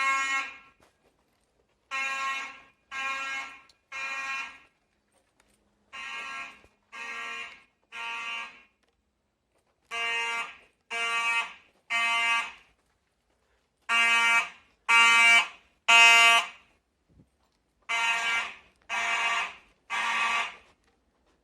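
Simplex mechanical fire alarm horns blaring in temporal code: buzzy blasts of about half a second, three to a group about a second apart, with a pause between groups. This is the standard three-pulse evacuation signal, sounded by a Simplex 4100U panel during an alarm test. The groups about two-thirds of the way through are the loudest.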